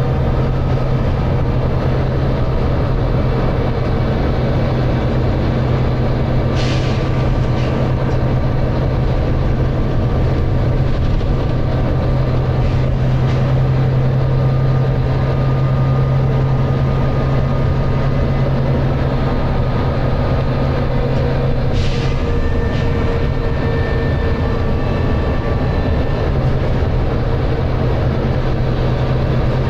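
Volvo B9TL double-decker bus's engine running steadily under way, a constant low hum. Two short hisses of air cut through it, about seven seconds in and again about twenty-two seconds in.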